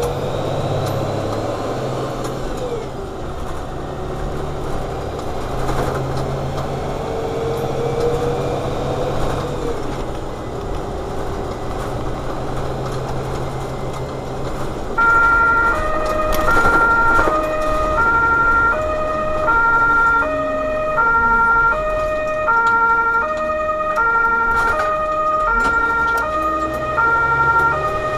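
Engine and road noise of an overhead-line tower truck driving on an emergency run. About halfway through, a German two-tone siren (Martinshorn) switches on and becomes the loudest sound: it alternates evenly between a high and a low note, each lasting a little over half a second.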